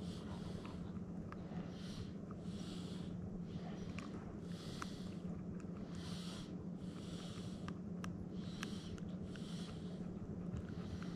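White Shiba Inu breathing slowly through its nose as it dozes, close up: soft hissy breaths about every second and a half, with a few faint small clicks. A steady low hum runs underneath.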